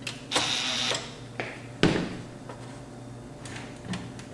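Hands working on the receiver's metal chassis and parts: a short scrape about half a second long, then a sharp knock, with a few light clicks.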